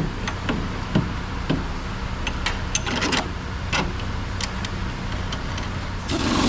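Metal suspension parts clicking, knocking and scraping as the front sway bar is worked back into place, with a louder rasping scrape near the end.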